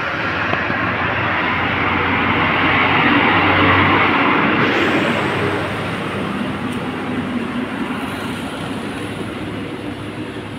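Rumbling noise of a vehicle passing, growing louder to a peak about four seconds in and then slowly fading.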